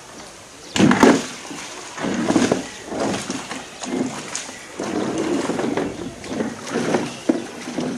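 A sun bear dragging a green plastic tub full of water over a rock floor in jerks. The tub scrapes and the water sloshes in a series of loud bursts, about one a second.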